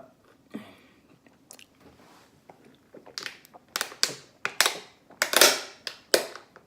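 Close-miked open-mouth chewing of waffles with wet lip smacks. The smacks are faint at first, then grow louder and come about twice a second from about three seconds in.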